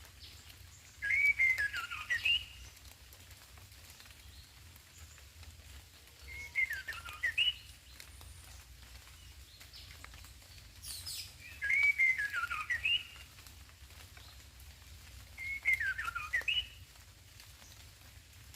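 White-rumped shama singing: four short whistled song phrases, each lasting about a second and a half and coming every four to five seconds, with two phrase shapes taking turns.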